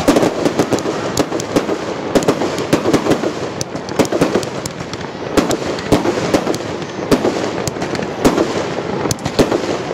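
Aerial fireworks going off in a rapid barrage: shells launched and bursting in quick succession, many sharp bangs and crackles each second with no break.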